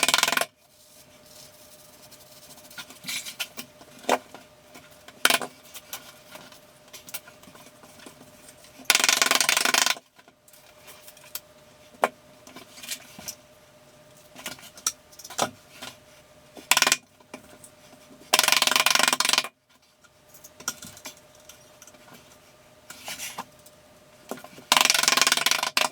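Sheets of small hexagonal mosaic tile being handled and set into thinset: scattered clicks and clinks of the little tiles knocking together, with three louder scraping sounds of about a second each.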